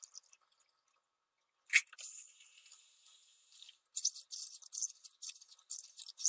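Copper spiral prismatic still-column packing being rinsed by hand in a plastic jug of water. First a sharp click and about two seconds of running water, then from about four seconds in a quick, irregular run of small splashes and clinks as the hand stirs the packing.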